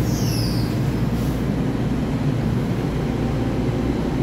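EMU3000 electric multiple unit pulling out of the platform, a steady low rumble of the cars rolling past. A brief high falling tone sounds at the very start.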